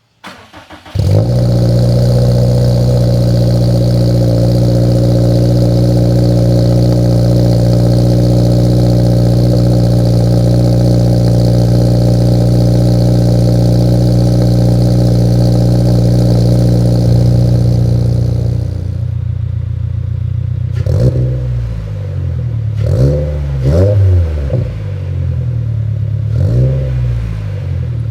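A 2022 Subaru WRX's turbocharged 2.4-litre flat-four, fitted with a catted J-pipe and MAP cat-back exhaust, cold-starting: a brief crank, then it catches about a second in and settles into a loud, steady high cold-start idle. Near the two-thirds mark the idle drops and quietens, and the engine is then blipped about four times, each rev rising and falling quickly.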